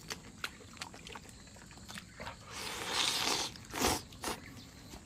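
Close-up eating sounds of someone chewing and biting into chicken, with small wet clicks of the mouth, a louder breathy rush about three seconds in and a sharp smack just before the fourth second.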